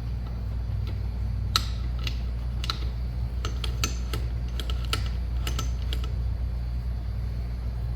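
Light metallic clinks and taps of tools and two-stroke engine parts being handled on the bench during engine reassembly, a scatter of sharp ringing ticks from about a second and a half to six seconds in, over a steady low hum.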